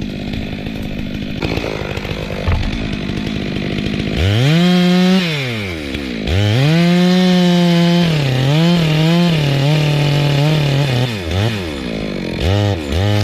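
Two-stroke chainsaw idling, then revved hard about four seconds in: its pitch climbs, falls back, climbs again and wavers up and down under throttle, then drops and is blipped twice near the end.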